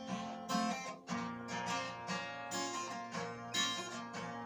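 Music: a guitar playing a string of plucked notes and chords, with no voice over it.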